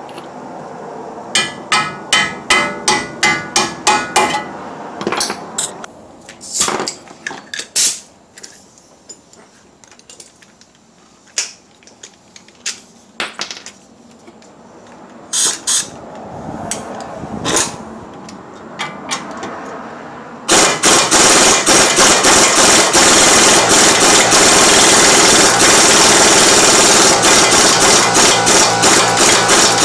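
Impact wrench hammering on a rusty outer tie rod nut. It starts about two-thirds of the way in and keeps up a loud, fast, steady rattle. Earlier there is a quick run of about ten sharp metal clanks, then scattered clinks of tools.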